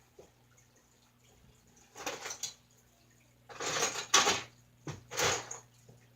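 Rummaging through small hard parts, clattering in three short bouts, the loudest a sharp clack about four seconds in.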